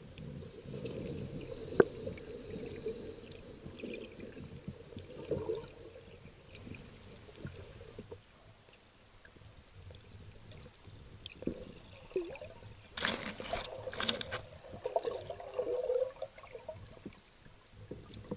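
Underwater sound picked up by a submerged camera: irregular water movement with trickling and pouring sounds. There is a sharp click about two seconds in, and a cluster of louder crackles about two-thirds of the way through.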